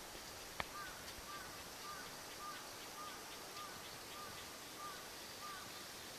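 A sharp click about half a second in, then a small animal's short chirping call repeated about nine times at an even pace, with faint fast ticking higher in pitch, over steady outdoor hiss.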